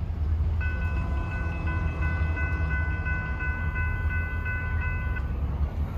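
Railroad crossing bell ringing with evenly repeated strikes, starting about half a second in and stopping about a second before the end, over the heavy low rumble of a diesel freight train at the crossing.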